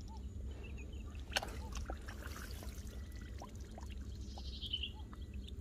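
Faint dripping and trickling of water, with scattered small plinks, one sharp click about a second and a half in, and a faint falling bird call near the end.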